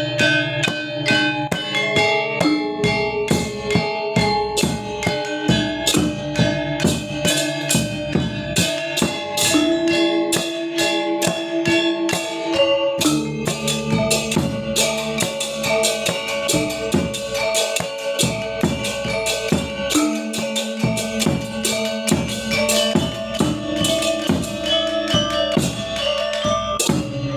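Balinese gamelan gong ensemble playing: bronze keyed metallophones and gongs struck in a dense, fast rhythm with drums among them, over ringing held tones that shift in pitch about halfway through.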